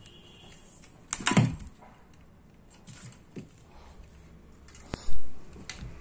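Bladeless ceiling fan motor spinning with a faint steady hum. A knock comes about a second in, and near the end there is a sharp click and a thump as the fan regulator is handled.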